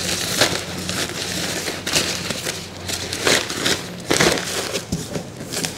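Plastic bag crinkling and rustling as it is handled, with several sharper crackles along the way, over a faint steady low hum.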